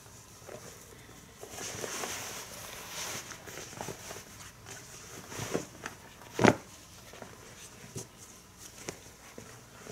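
Soft leather rustling and scuffing as a sewn leather coat sleeve is worked through by hand and turned right side out, with a few light taps and one sharp knock about six and a half seconds in.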